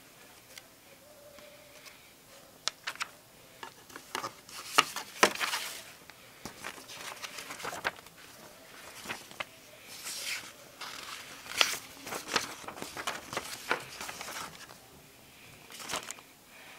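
Paper leaflets, an instruction manual and a cardboard kit box being handled: rustling, page flipping and light taps. The rustling comes in bursts, loudest about five seconds in and again at around ten to twelve seconds.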